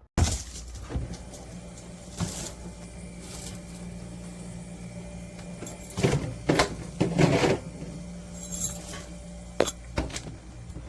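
Compact wine cooler running with a steady low hum, with a few knocks and rustles of handling about two seconds in and several more between six and ten seconds.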